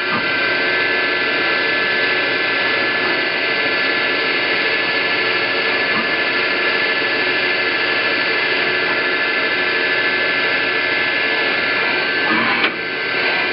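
Pratt & Whitney Tape Drill Mate CNC drilling machine running a programmed drilling pattern: the spindle and drives give a loud, steady whine of several held tones, with a brief change near the end as the machine moves on.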